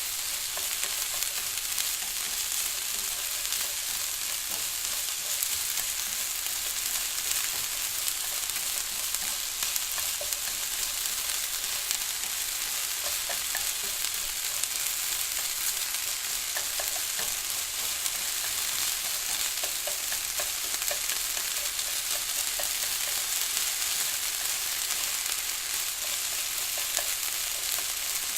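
Onions frying: a steady, high sizzle with many small scattered pops and crackles.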